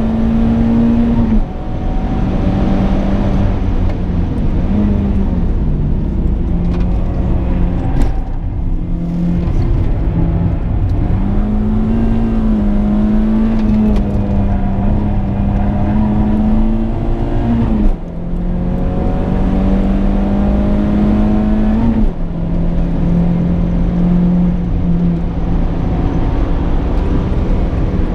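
Renault Clio 172's 2.0-litre four-cylinder engine heard from inside the cabin while being driven hard, its note climbing steadily and then dropping sharply at gear changes several times, with smoother dips as it slows for corners.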